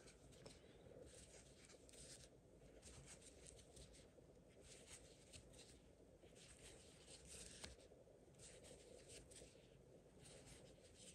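Faint, repeated scratchy rustles of a metal crochet hook drawing cotton yarn through stitches while single crochet stitches are worked.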